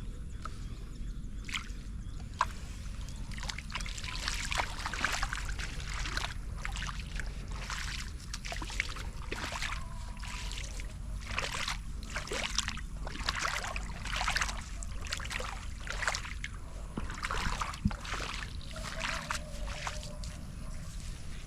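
Shallow floodwater splashing and sloshing in quick, irregular bursts, busiest through the middle, over a steady low rumble.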